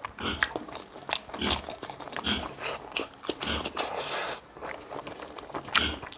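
A person chewing and biting food close to the microphone: irregular crunchy clicks and mouth sounds, several per second.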